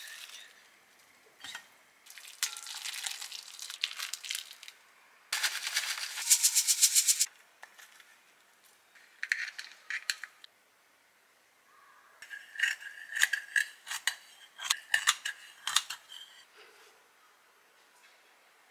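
Thin plastic bag crinkling and rustling as flat pancakes are pulled out of it, loudest about six seconds in. Later comes a quick run of light clicks and taps of chopsticks and ceramic tableware.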